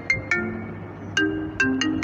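An iPhone default ringtone playing: a quick run of short, pitched notes that breaks off about a third of a second in and starts again just after a second.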